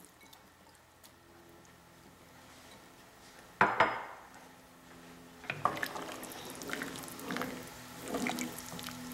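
A single sharp knock about a third of the way in, then a wooden spoon stirring liquid soup in a metal pot from about halfway: sloshing broth and light scrapes and taps of the spoon.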